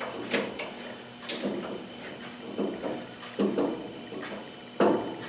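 Handling noise of metal parts: five or six separate clanks and scrapes as the stretching jig's eyelets are worked off a freshly installed hood hinge spring. The loudest knock comes near the end.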